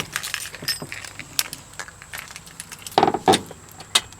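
Keys jangling and clinking, with scattered light clicks and a couple of louder knocks about three seconds in.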